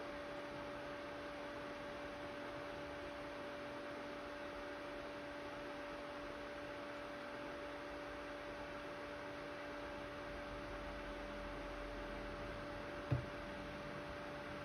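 Steady electrical hum with a faint hiss from a Tronxy ceramic clay 3D printer standing powered: one low tone and another at twice its pitch. A low rumble comes in about ten seconds in, and a single sharp click sounds about thirteen seconds in.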